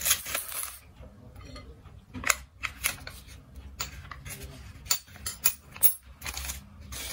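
Metal spoon clinking and scraping against a glass mixing bowl while handling the batter, a series of sharp, irregular clicks.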